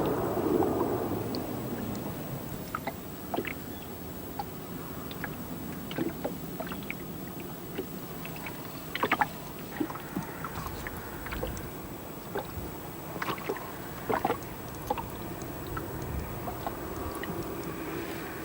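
Water lapping against a small boat on a lake, with scattered small clicks and knocks; a louder rush of noise dies away over the first few seconds.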